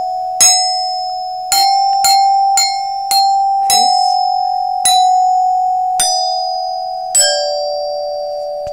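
Glockenspiel struck with a mallet, playing a slow melody of single notes, about nine strikes, each note ringing on into the next; the last, lower note near the end is held and rings for several seconds.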